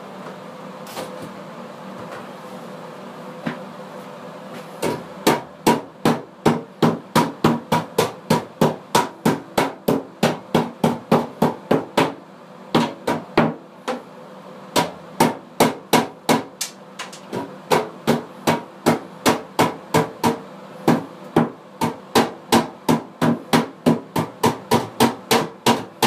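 Hammer blows in a fast, even run of about three strikes a second, starting about five seconds in and broken by a few short pauses.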